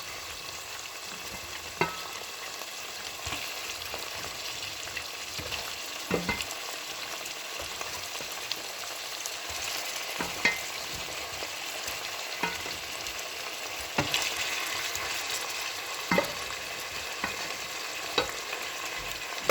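Red palm oil sizzling steadily in a hot pot with onions, bell peppers and garlic frying in it, with a sharp knock every few seconds.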